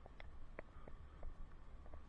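Riding noise from a bicycle, heard on a helmet-mounted camera: a low steady rumble with scattered light clicks and rattles at irregular intervals.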